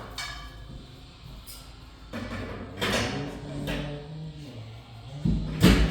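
Bed furniture being moved and set in place: scattered knocks with one loud thump near the end, over faint background music.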